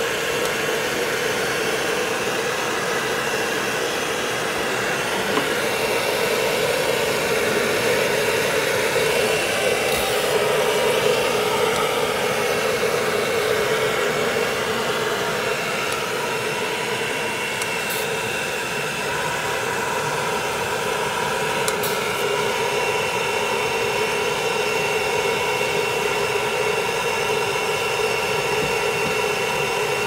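Pet hair dryer blowing steadily at close range: a constant rush of air with a steady hum.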